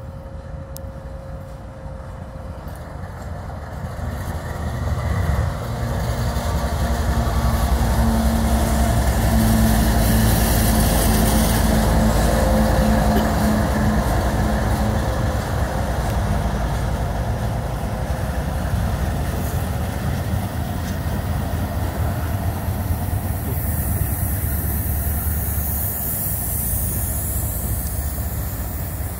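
CSX GE ES44AH diesel-electric locomotive passing close by, its V12 diesel engine drone growing louder over the first several seconds. It is followed by the steady rumble and clatter of double-stack container well cars rolling over the rails.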